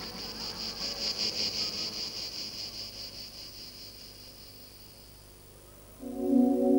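High, rapidly pulsing cricket-like chirping that fades away over a few seconds. About six seconds in, a loud sustained musical tone with several stacked pitches starts suddenly.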